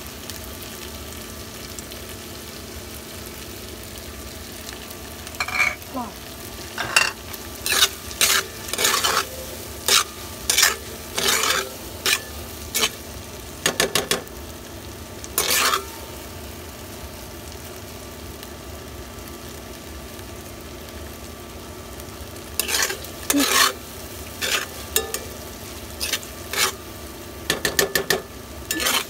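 Minced meat and tofu sizzling in a wok, with bursts of a spatula scraping and stirring through them from about five seconds in to about sixteen, then again near the end.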